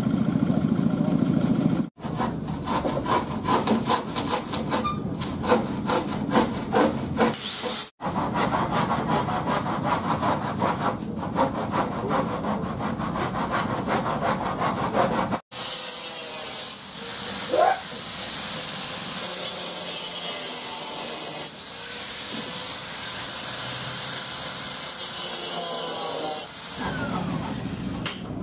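Tools working wood. For the first half, quick repeated scraping or sawing strokes. Then, after a cut, a small electric power tool runs steadily with a high whine that wavers slowly in pitch.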